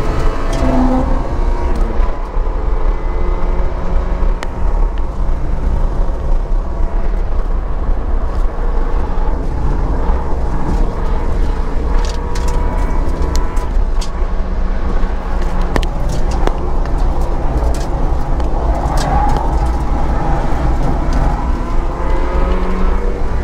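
Mazda MX-5 Miata's four-cylinder engine driven hard on track, its pitch rising and falling through gear changes and braking. It is heard from the open cockpit with the top down, under heavy wind rumble on the microphone.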